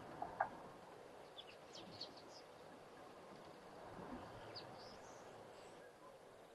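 Quiet outdoor ambience with small birds giving short high chirps in two bouts, about a second and a half in and again about four and a half seconds in. A brief sharp knock just after the start is the loudest sound.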